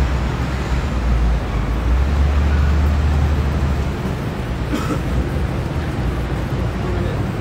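Steady city street noise of road traffic, with a heavy low rumble that eases about four seconds in.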